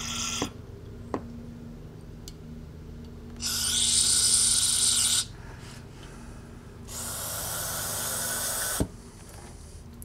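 Aerosol carburetor cleaner sprayed into a carburetor's throat in two hissing bursts, each about two seconds long, the second a little quieter. A push lawn mower drones steadily in the background.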